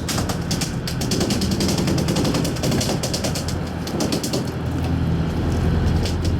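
Fishing reel clicking rapidly in a fast, continuous run of ticks while a fish is fought, over the low steady hum of the boat's engine.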